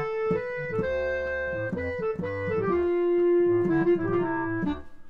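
Electronic keyboard with an organ sound playing an instrumental passage of a song: notes held about a second each, the melody stepping down in pitch.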